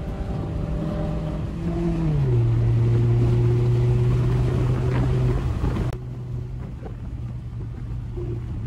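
Car engine running under way over road and wind noise, its note falling about two seconds in and then holding steady. The sound drops abruptly in level about six seconds in, the engine tone continuing faintly.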